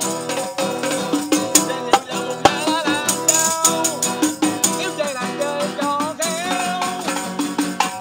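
Live singing of a Vietnamese parody song, a man's voice over steady musical accompaniment, with a hand tambourine jingling and struck in rhythm.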